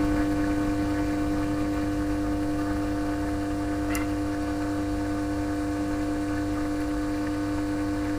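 Steady electrical hum with a fixed pitch, and one light click about four seconds in.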